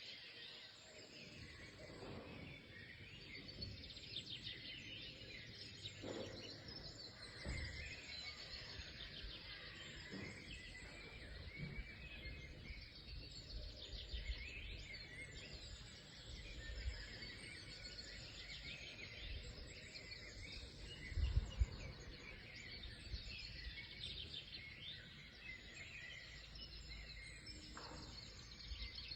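Many songbirds chirping and singing at once in a dense, continuous chorus of short high calls and trills. Scattered low thumps sound underneath, the strongest about 21 seconds in.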